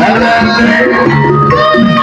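Loud music with held, steady notes and drum beats underneath.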